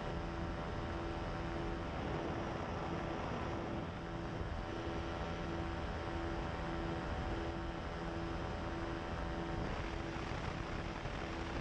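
Pterodactyl Ascender II ultralight's engine and propeller droning steadily in flight, over a rush of wind noise, with a tone that pulses about twice a second.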